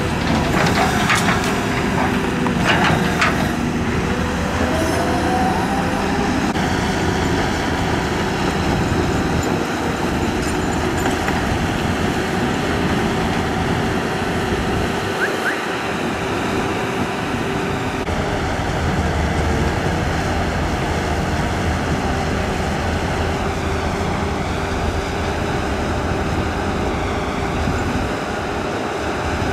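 Heavy tracked excavators' diesel engines running steadily under hydraulic load, the Cat 320 working beside a Hyundai long-reach excavator mired in mud. A few metal clanks in the first three seconds and a rising hydraulic whine soon after.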